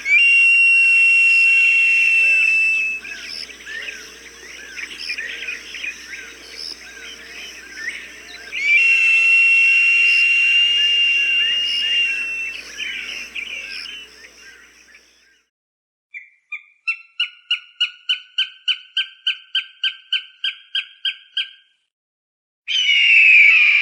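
Recorded hawk calls: two long, drawn-out high screams several seconds apart over the chatter of smaller birds, then a fast run of about fifteen short sharp repeated notes, about three a second, and a loud harsh call near the end.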